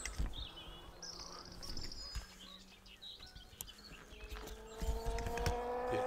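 Small songbirds chirping and trilling in the early-morning chorus, with handling thumps and rustle at the start as the camera is turned around. About four seconds in, a steady hum comes in and holds.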